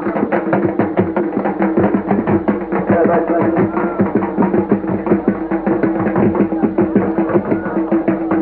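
Music: a rapid, even drum beat over a steady, held droning tone.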